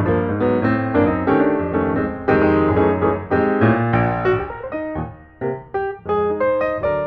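Background piano music, a run of quick notes and chords.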